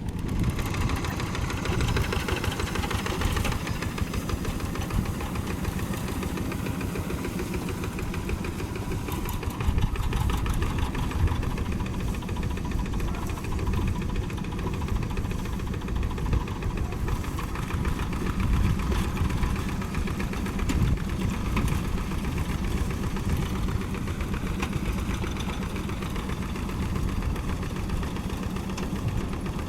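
A tractor's diesel engine running steadily under ploughing load, its fast firing clatter continuous and its pitch wavering only slightly.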